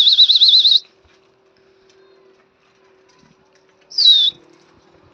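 High, loud whistling: a fast warbling trill about a second long at the start, then a short falling whistle about four seconds in, the kind a pigeon keeper uses to drive his flock in the air.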